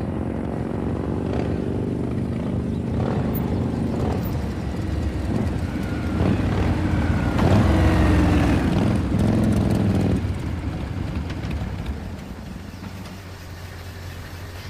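Motorcycle engines running and revving, starting suddenly, loudest with shifting pitch in the middle, then dying away over the last few seconds.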